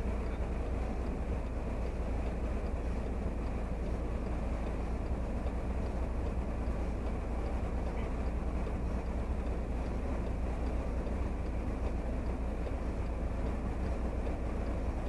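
Steady low rumble of a stationary car's engine idling, heard from inside the cabin, with a faint wash of street traffic.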